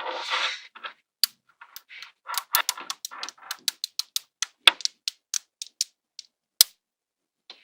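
Small magnetic balls clicking and snapping together in a quick, irregular run of sharp clicks, after a short rattle of balls at the start.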